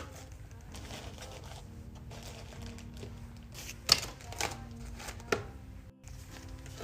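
Food packaging and containers being handled while a fridge or pantry is restocked: light clatter with two sharp clicks, the loudest about four seconds in and the other about five and a half seconds in, over faint background music.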